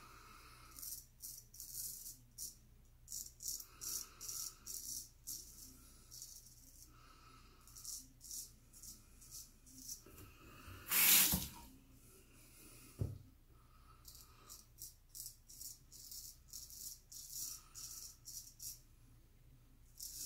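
Gold Monkey straight razor scraping through lathered stubble, a quick series of short, dry, raspy strokes repeating all through. About eleven seconds in there is one louder rushing noise lasting about half a second.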